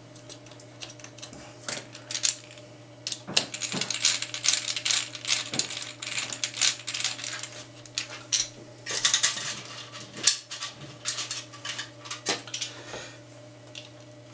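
Small metal screws and 3D-printed plastic parts being handled at close range, with irregular clicks and light rattles.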